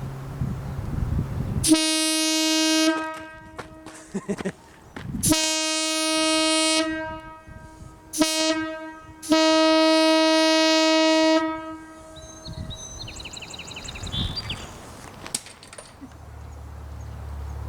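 Restored Wabco AA-2 locomotive air horn, sounding on its single long bell, blown four times: long, long, short, long, the pattern of a railway grade-crossing signal. Each blast is one steady, rich, single-note tone, the last held longest.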